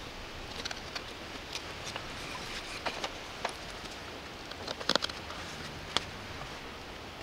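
Knife blade shaving and paring wood in the bowl of a hand-carved wooden ladle: scattered soft scrapes and small clicks, with a few sharper clicks about five and six seconds in.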